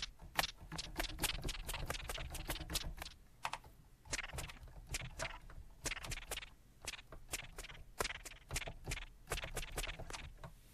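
Fingers tapping out a quick, irregular run of short clicks and taps, several a second, over a faint low hum.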